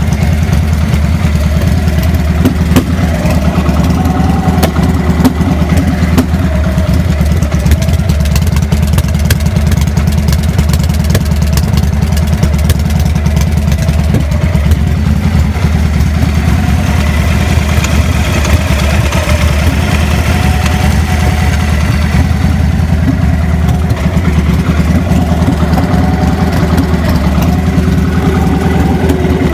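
2000 Victory V92SC's 92-cubic-inch V-twin idling roughly and unevenly, with scattered sharp pops, the rough idle and popping the owner is showing as a fault.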